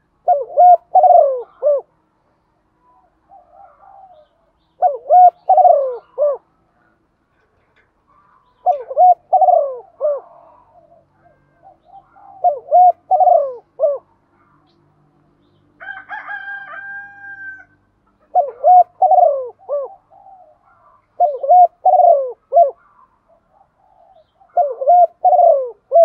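Female spotted dove cooing, the kind of call used to stir up male doves: seven phrases of several coos each, one every three to four seconds. In one gap about two-thirds through comes a different, higher, drawn-out call.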